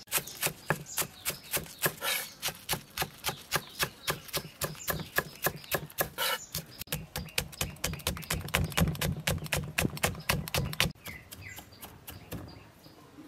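Kitchen knife chopping quickly on a thick round wooden chopping board, about four even chops a second, mincing spring onions and chilies. The chopping stops about eleven seconds in.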